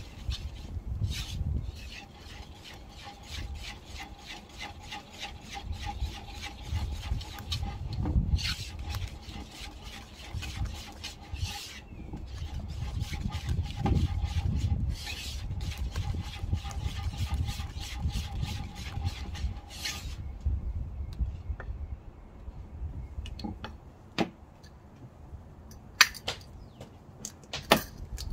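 Wire balloon whisk beating a flour-and-water dough in a wooden bowl: rapid scraping strokes against the wood. The whisking stops about twenty seconds in, and a few sharp clicks follow near the end.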